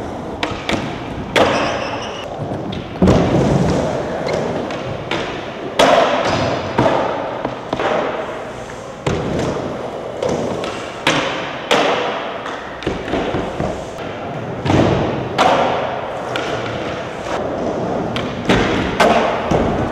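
Skateboard wheels rolling on smooth concrete, broken by repeated sharp pops and slaps of the board as tricks are popped and landed, about a dozen hits spread unevenly through the stretch.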